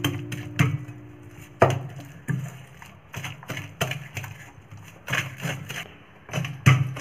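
A wooden pestle pounding and mashing gongura leaves with onions in a steel bowl: irregular knocks, roughly one or two a second.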